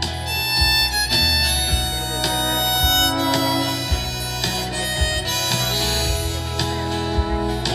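Live rock band playing an instrumental break: a harmonica lead over acoustic guitar, electric bass and drums.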